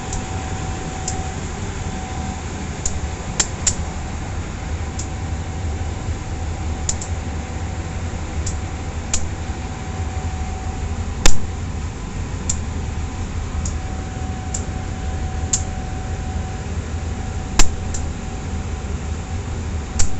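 Steady low mechanical rumble of locomotive diesel refuelling, with a hose nozzle delivering fuel into the tank, and scattered sharp metallic clicks. Two louder clicks stand out, one about halfway through and one near the end.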